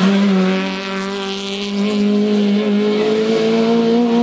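Racing hatchback's engine held at high revs as the car drives through a slalom corner: a steady, high engine note that rises slightly toward the end.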